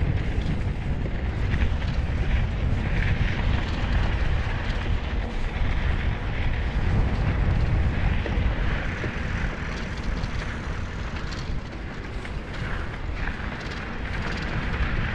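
Wind buffeting the microphone of a handheld action camera, a steady low rumble with a gusty hiss that comes and goes.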